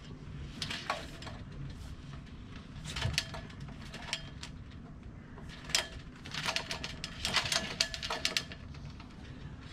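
Light metallic clinks and rattles from a Hobie 16 mast's rigging hardware as the mast is handled and lifted, coming in scattered clusters, busiest in the second half, some with a brief ring.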